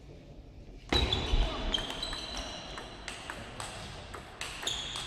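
Table tennis rally: the ball clicks off the bats and the table in quick, irregular succession. High squeaks, likely the players' shoes on the hall floor, run through it. It starts suddenly about a second in.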